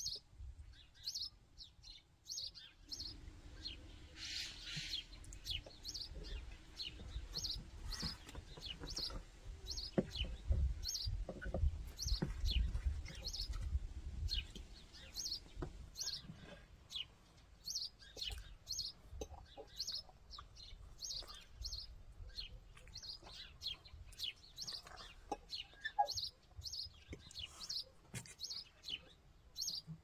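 Small songbirds chirping steadily, about two short high chirps a second, with cutlery clinking now and then on plates and a low rumble through the middle stretch.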